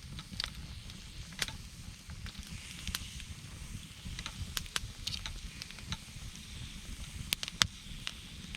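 Wood campfire crackling, with irregular sharp pops and snaps over a steady hiss.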